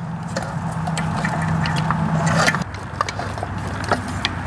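Scattered plastic clicks, rustling and scraping as an ignition coil rail and its wiring harness are worked by hand in under the engine's intake pipes. A steady low hum underneath stops about two and a half seconds in.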